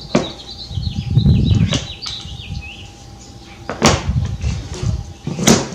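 Gen II Prius hybrid battery modules being handled on a cardboard box: a sharp knock at the start, a low scraping rub about a second in, and two more clunks near the end as the modules are set down and shifted.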